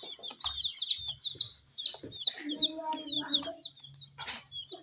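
Young chicks peeping rapidly and continuously in short, high chirps. A lower, drawn-out call joins in about halfway through, with a few sharp clicks scattered among the peeps.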